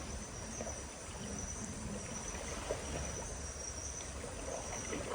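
Insects chirring in one steady, high, thin tone over a faint hiss of background noise.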